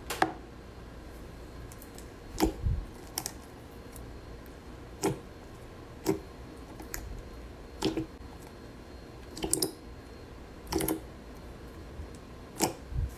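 Slime being handled, giving about ten sharp clicks and pops spaced a second or two apart.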